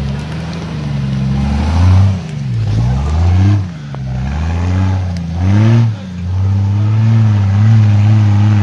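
Off-road Jeep Wrangler's engine revving as it climbs a trail. It rises and drops back about three times, then holds steady.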